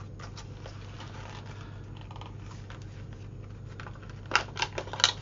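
Faint rustling over a low steady hum, then from about four seconds in a quick run of sharp plastic clicks and crackles as a boxed pack of paint markers is picked up and handled.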